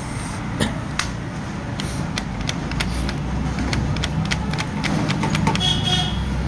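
Sharp metal clicks and ticks, about two or three a second and unevenly spaced, as a key blank gripped in locking pliers is rocked and turned inside a Ford Figo lock cylinder to raise impression marks on the blade. A steady low hum runs underneath.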